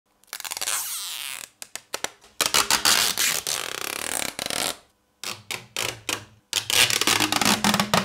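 Protective plastic film being peeled off the acrylic and metal of a PC water-cooling GPU block and distribution plate. It makes a crackly tearing hiss in several pulls of one to two seconds, with short pauses between.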